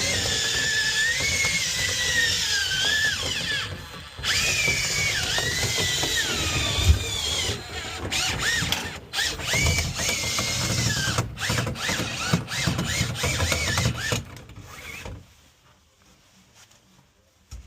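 Power drill spinning dryer-vent cleaning rods and brush through a lint-packed duct: a wavering whine with rattling, broken by short pauses. It stops about 15 seconds in.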